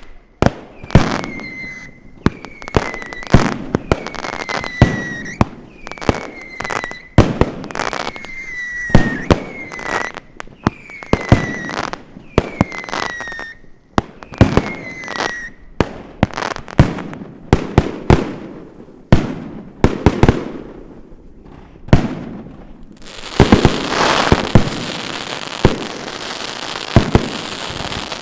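Fireworks going off: shots come every second or so for the first half, each trailed by a short falling whistle and followed by bangs. From about 23 seconds in, a dense crackle of many small reports takes over, with bangs still sounding through it.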